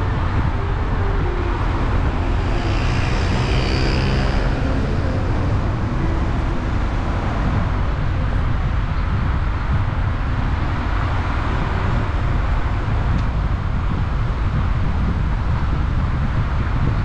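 Steady low road and wind rumble from a moving car. About two to five seconds in, a passing engine with a clear pitch rises over it and fades.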